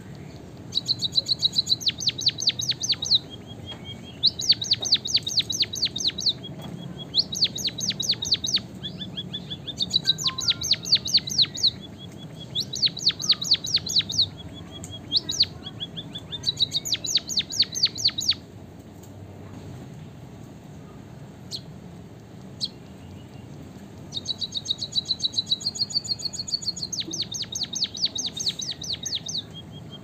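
White-headed munia singing: runs of rapid high chirps, each run lasting one to two seconds, repeated with short pauses, with a few seconds' break about two-thirds of the way through.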